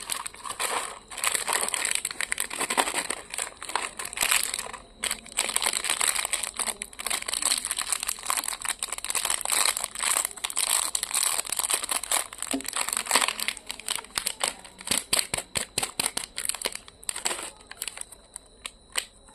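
Plastic candy wrappers and packaging crinkling and crackling as they are handled and opened, with many sharp crackles almost without a break, dying away near the end.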